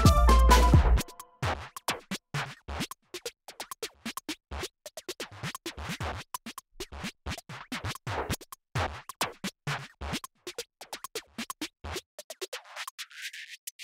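Background electronic music. About a second in the full beat and bass drop out, leaving sparse, irregular short clicks and stabs. Near the end the low end is swept away, so only thin high sounds remain.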